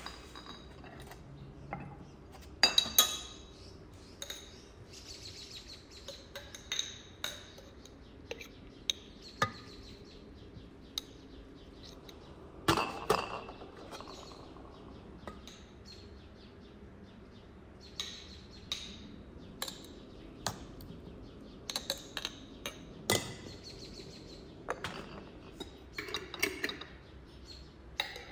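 Glass jars clinking and knocking against each other and a metal tray as they are handled and packed with chopped vegetables: scattered light taps, with a few louder knocks that ring briefly.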